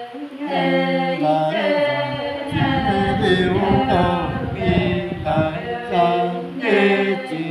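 Unaccompanied male singing: a folk song sung in long held notes that step up and down in pitch, with a low rumble under the voice for a couple of seconds in the middle.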